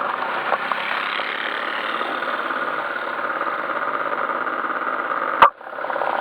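Yamaha Majesty S scooter's 155 cc single-cylinder engine running steadily. A sharp click about five and a half seconds in is followed by a brief dip in the sound.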